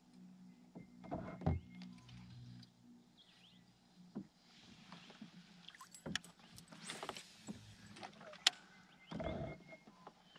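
Kayak on the water: a low steady hum for the first few seconds, then scattered knocks and sharp clicks against the hull and a short stretch of water splashing.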